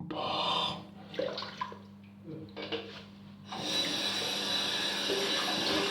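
Bathroom tap turned on about three and a half seconds in, water running steadily into the sink; before it, a few small knocks and rustles.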